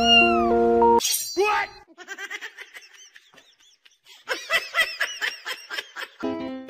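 Background music stops about a second in. A short falling squeal follows, then quick runs of short, high-pitched rising-and-falling vocal sounds, about five a second. Plucked-string music comes back near the end.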